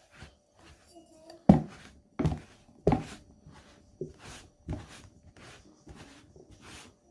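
Puttu flour being mixed with hot water in a bowl: a series of knocks, one about every half second to second, with soft scraping between them.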